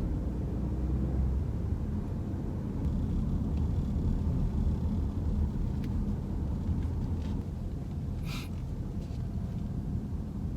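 Inside the cabin of a Genesis GV70 on the move: steady low road and tyre rumble. A faint click about six seconds in and a short, sharper noise a little after eight seconds.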